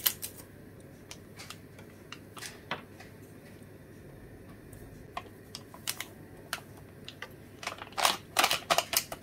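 Paper packet of vital wheat gluten crinkling and rustling as it is tipped and poured into a glass bowl: scattered light crackles, with a louder flurry of them near the end.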